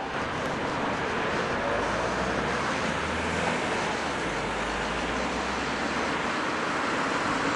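Freight train's goods wagons rolling past: a steady noise of steel wheels on rails with a low rumble underneath that drops away as the last wagon goes by near the end.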